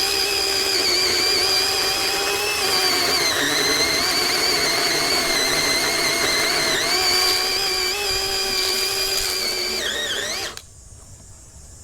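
Greenworks 40V brushless cordless chainsaw running with a steady high electric whine, its pitch dipping slightly now and then. Near the end the pitch glides down and the saw stops abruptly.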